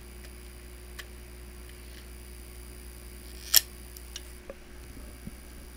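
Laptop SO-DIMM memory stick being pushed down into its motherboard slot, snapping into the retaining clips with one sharp click about three and a half seconds in, with a few lighter clicks of handling around it, over a low steady hum.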